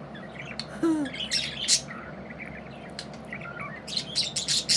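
Budgerigar chattering with quick chirps and clicks, busiest about a second in and again near the end; the owner takes it for the sound of a happy bird.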